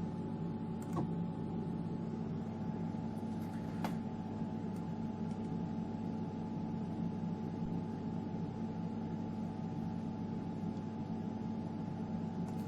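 Steady electrical hum from the idle EMCO Compact 5 lathe, its stepper motors energised and the spindle stopped, with a couple of faint clicks about one and four seconds in.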